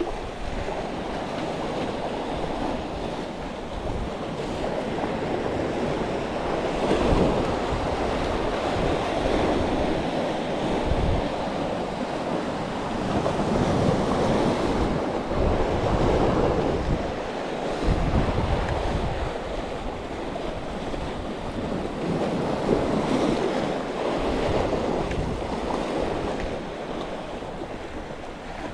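Sea waves surging and breaking against a rocky shoreline, the wash rising and falling every few seconds.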